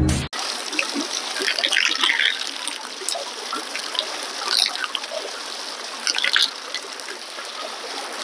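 Water trickling and splashing steadily over stream rocks, with a few brief louder splashes now and then.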